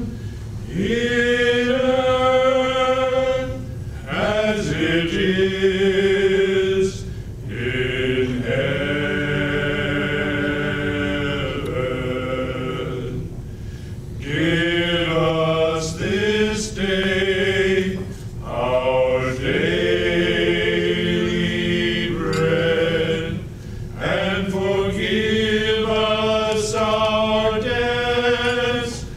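A small group of five men singing together a cappella, holding long sustained notes in phrases of a few seconds, with short breaks for breath between them.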